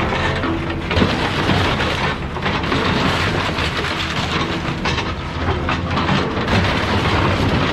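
Excavator's car-dismantling grapple crunching and tearing into a scrapped car's body: dense metal crunching and clattering with repeated knocks, over the steady rumble of heavy machinery.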